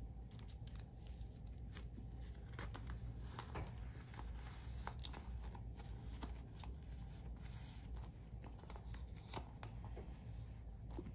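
Soft plastic rustling and crinkling with many small irregular clicks and taps as photocards are slid into the clear plastic pockets of a binder page.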